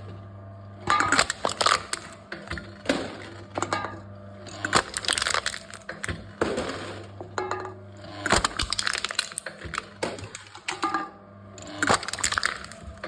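Aluminium cans crushed one after another by a crushing machine: about six bursts of crackling, crunching metal, a second or two apart, over a low steady hum.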